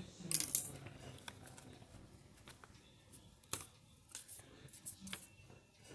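Scissors cutting a sheet of paper: a brief, loud burst of cutting and paper rustle about half a second in, then a few faint separate clicks and rustles as the paper is handled.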